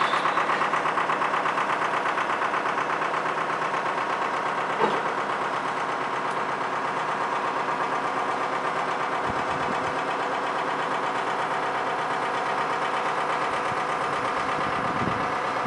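A steady mechanical drone with a fast, even pulsing, like a motor or engine running continuously, and a faint click about five seconds in.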